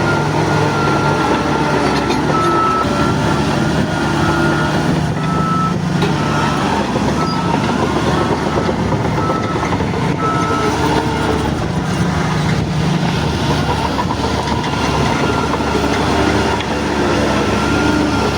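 Shantui DH17 crawler bulldozer's diesel engine working under load with its tracks rattling, while a reversing alarm beeps about once a second and stops a little past halfway.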